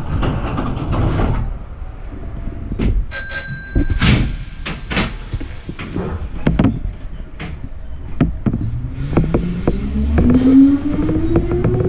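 Hankyu electric train heard from the driver's cab: scattered knocks and clunks, with a brief bell-like tone about three seconds in. About eight seconds in the traction motors start a rising whine as the train pulls away from the platform.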